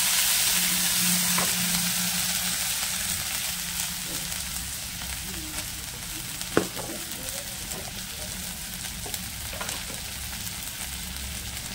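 Masala of ginger paste, cumin powder, turmeric and salt sizzling in hot oil in a kadai while a steel spatula stirs it. The sizzle is loudest at first and slowly dies down, with one sharp click about two-thirds of the way in.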